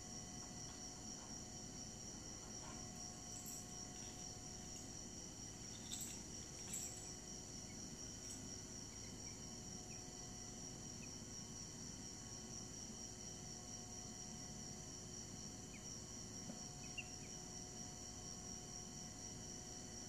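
Insects trilling steadily, a continuous high-pitched pulsing trill, with a couple of faint clicks about six seconds in.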